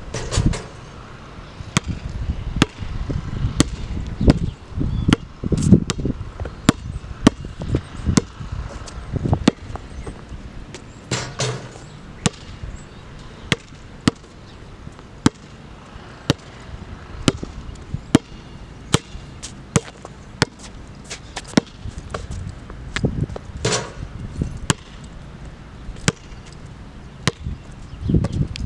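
Basketball bouncing on an outdoor hard court, a sharp bounce about twice a second, with a few louder, longer knocks among them.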